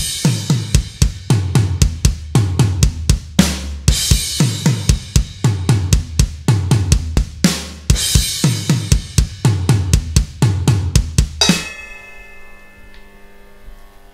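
Background music: a drum-kit beat with deep bass-drum kicks about two a second, snare and cymbals over a low bass line. About 11.5 seconds in the drums stop suddenly, leaving a held chord that fades away.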